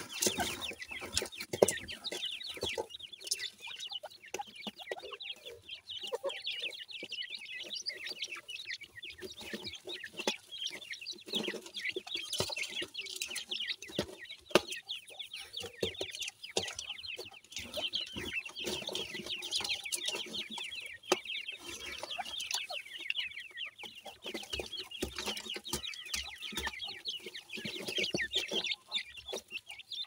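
A brood of francolin (teetar) and pheasant chicks peeping continuously: a dense chorus of short, high, falling peeps, with occasional taps and scratches in loose soil.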